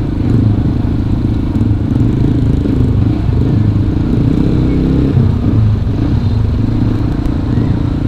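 Yamaha WR155R's single-cylinder engine running at low speed in slow, jammed traffic, its note shifting slightly as the rider eases the throttle on and off.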